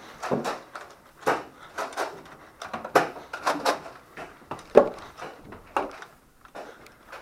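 Nerf Rival blasters firing foam balls in a running fight, a rapid irregular series of sharp cracks and knocks as shots go off and balls smack into walls and furniture.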